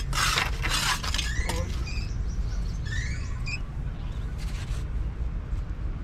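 Metal trowel scraping and tapping on wet concrete in a steel block mould during about the first second, over a steady low rumble. A few short rising chirps come in the middle.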